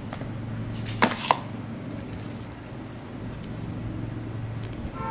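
Items from an unboxing being handled on a table: two sharp taps close together about a second in, then a few lighter ticks as a paper leaflet is picked up, over a steady low hum.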